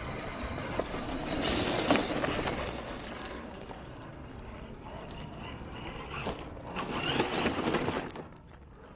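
Scale RC crawler trucks driving over loose shale and stones: tyres crunching and rocks scraping and rattling. It swells as a truck passes close, about two seconds in and again near the end.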